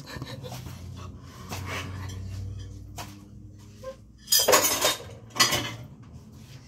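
Kitchenware clinking and clattering on a countertop. Two louder clatters come about four and a half and five and a half seconds in, as a pitcher and dishes are handled and set down.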